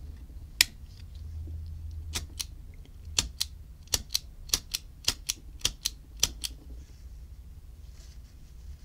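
Sharp metallic clicks from a vintage Ronson Triumph automatic petrol lighter's mechanism as the lever is pressed and the snuffer snaps back, about fifteen clicks, mostly in quick pairs, stopping well before the end. The action is still gummy and the lighter does not yet spark.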